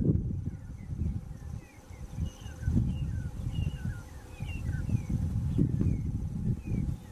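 Wind buffeting the microphone in gusty low rumbles, with a bird giving short chirps over and over in the background.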